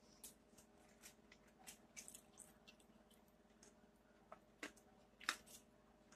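Near silence: a few faint, irregular ticks and crackles over a low steady hum.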